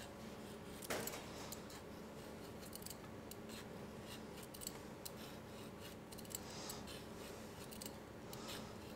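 Metal vegetable peeler scraping the skin off a pear in short, repeated faint strokes, with a low steady hum underneath.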